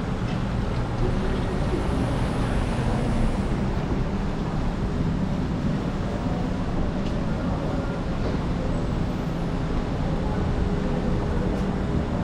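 Steady city street traffic noise: vehicles passing in a continuous hum with no distinct single event.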